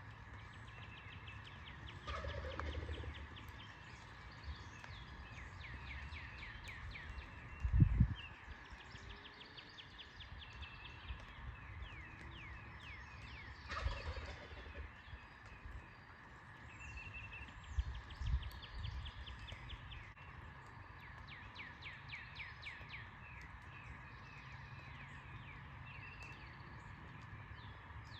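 Wild turkey gobbling twice, about two and fourteen seconds in, over repeated rapid trills of small songbirds. A low thump on the microphone about eight seconds in is the loudest sound.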